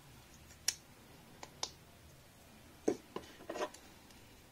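Light clicks and taps of a plastic game miniature and its base being handled and set into a plastic box insert: a few separate sharp ticks, then a small cluster of knocks about three seconds in.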